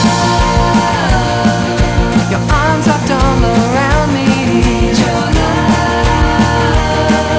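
Pop-punk song: a melody that glides between notes over a steady drum beat.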